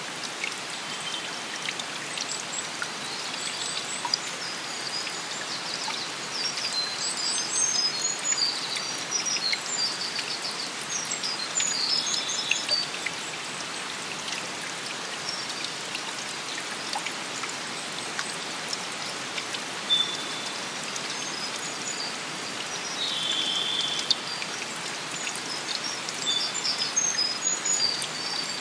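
Steady wash of rain and running water, with songbirds calling over it in short, high chirps and trills that come in clusters, busiest a third of the way in and near the end.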